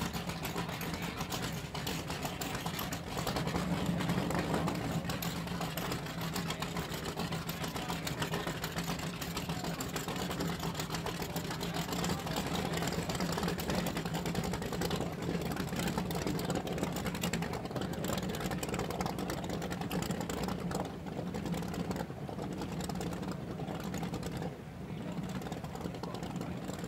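Offshore race powerboat's engine running at idle as the boat moves off at low speed: a steady low hum with a rapid mechanical chatter over it.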